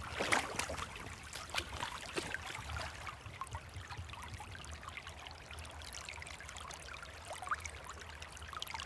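Creek water trickling and gurgling close to the microphone, a steady babble of many small splashes, with a slightly louder splash right at the start.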